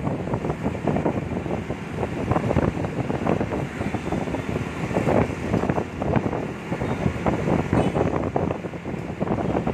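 Wind buffeting the microphone on the back of a moving motorcycle, a gusty rumbling noise, with the bike and the surrounding road traffic running underneath it.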